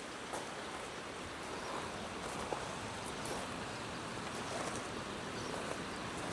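Steady outdoor ambient hiss, even throughout, with one or two faint ticks.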